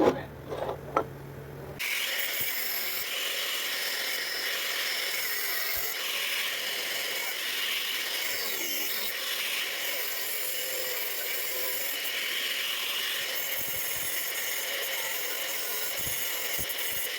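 Electric arc welding on a broken coupling: a steady crackling hiss from the arc that starts about two seconds in and runs evenly for about fifteen seconds, after a few short knocks.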